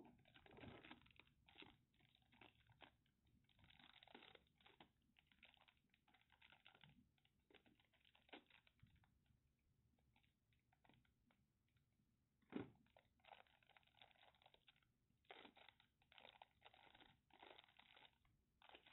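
Faint crinkling and rustling of thin clear plastic bags being handled, in irregular bursts, with one sharper knock about two-thirds of the way through.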